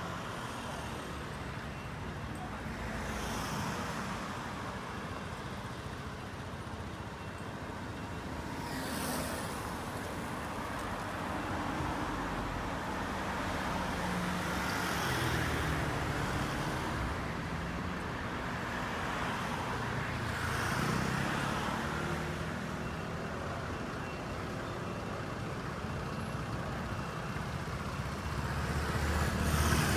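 Street traffic: motor scooters and cars passing one after another, engines running over a steady road noise, with swells as each passes. Near the end a scooter close by gets louder.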